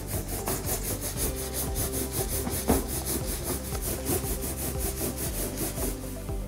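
A rubber balloon rubbed hard and fast back and forth over a child's hair, an even scratchy rubbing at about six strokes a second, charging the balloon with static electricity.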